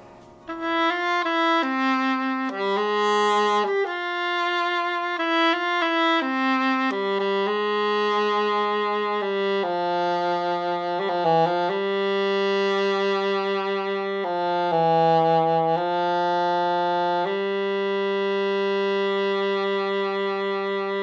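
Instrumental music: a slow wind-instrument melody, starting about half a second in and ending on a long held note.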